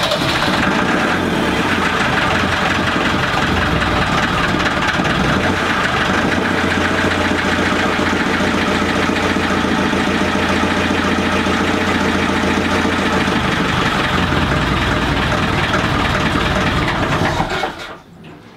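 Ford 2712E six-cylinder industrial diesel engine running steadily just after a first start following an impeller and fuel filter change; it is shut off near the end and stops abruptly.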